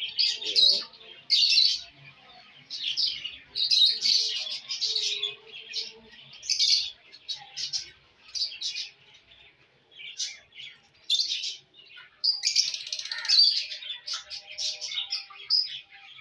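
A flock of caged budgerigars and lovebirds chirping and chattering in quick, irregular runs of high-pitched calls, thinning out for a couple of seconds near the middle.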